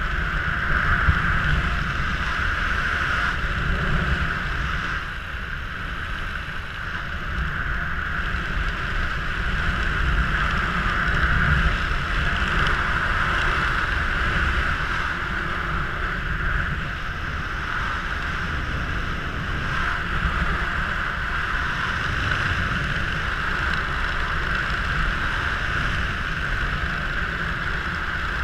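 Steady wind rushing over the microphone of a head-mounted camera as the skydiver descends under an open parachute canopy: a low rumble with an even hiss over it, unbroken throughout.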